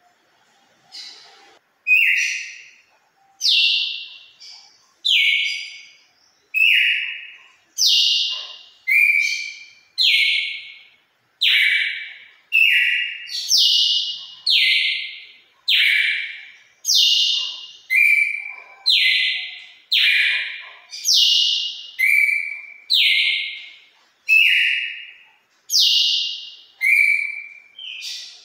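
Red-cowled cardinal (galo-de-campina) singing the wild five-note song that ends in the 'turril' phrase: a long run of clear whistled notes, each sliding slightly downward, about one a second.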